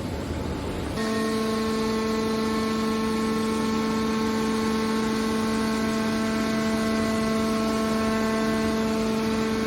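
Scrap-metal baler machinery running: a noisy low rumble that gives way suddenly, about a second in, to a steady pitched machine hum that holds unchanged.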